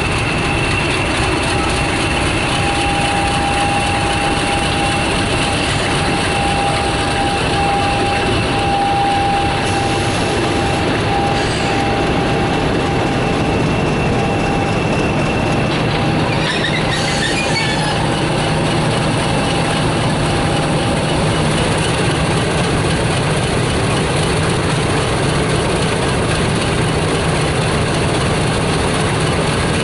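British Rail Class 50 diesel locomotive's English Electric 16-cylinder engine running, with a steady high whine over it for the first two-thirds.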